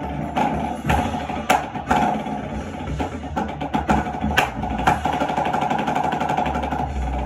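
Drumsticks striking a small goblet-shaped drum in a fast drum-corps percussion part, with sharp accented hits every second or so. They sound over a steady sustained musical tone.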